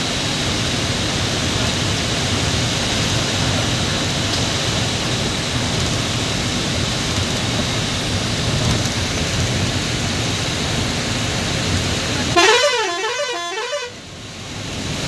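Steady noise of heavy rain and the bus running, heard from inside the cab. Near the end a horn sounds for about a second and a half, its pitch wavering up and down about three times a second.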